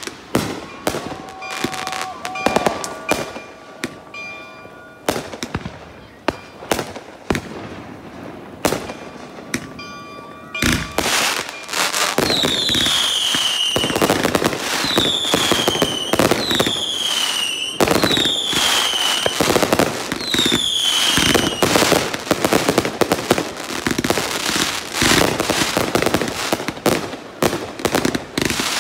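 Aerial fireworks going off: scattered bangs at first, then from about eleven seconds in a dense, louder barrage of bursting shells and crackling, with five short falling whistles between about twelve and twenty-one seconds.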